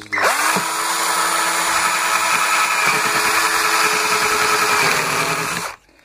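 Electric drill spinning up and boring a control hole through the plastic rim of a washing machine tub. It runs steadily for about five and a half seconds, then stops near the end.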